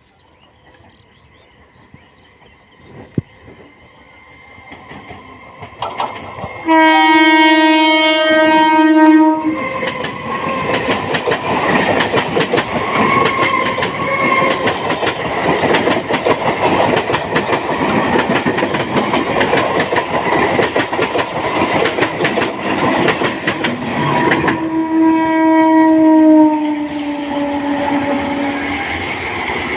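Indian suburban local trains approaching and passing close: one sounds a long horn blast as it nears, then wheels rumble and clatter on the rails as the train runs by. A second horn blast near the end drops in pitch as it passes.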